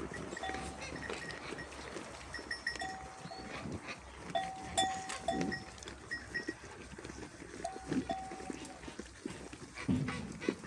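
A flock of sheep with neck bells: short clinking bell notes ring out again and again, with a few bleats among them.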